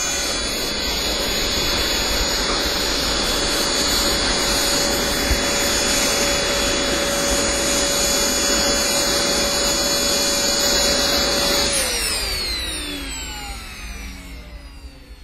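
Model jet turbine running at a steady high whine over the rush of its exhaust. About twelve seconds in it is shut down, and its pitch falls away as it spools down.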